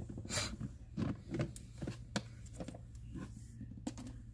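A plastic photo-and-craft keeper case being moved and set aside: a brief swish near the start, then a series of light plastic clicks and knocks.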